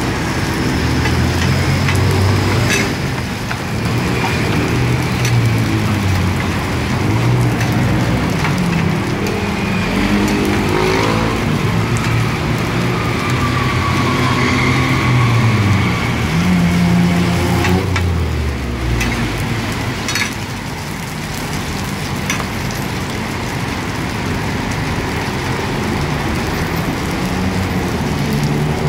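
Chive cakes sizzling as they deep-fry in a wide wok of hot oil, with the occasional scrape of a metal spatula. Under it, vehicle engines run and pass close by, one rising in pitch about ten seconds in and another falling away near eighteen seconds.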